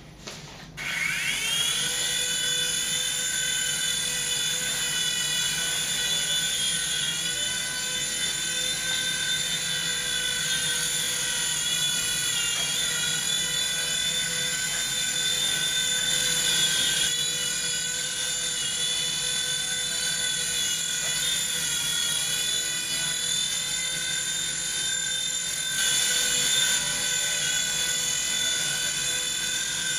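Small electric motors and rotors of a Falcon XVIII 8913 micro RC helicopter spinning up about a second in, rising briefly in pitch, then holding a steady, high-pitched whine.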